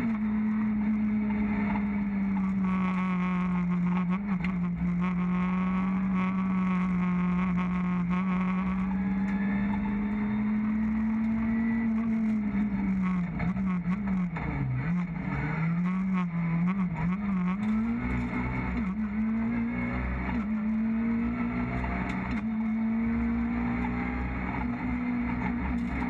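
Renault Clio R3 rally car's four-cylinder engine heard from inside the cockpit, running at steady high revs. About halfway through the revs drop and rise several times in quick succession, then climb back to a steady high pitch.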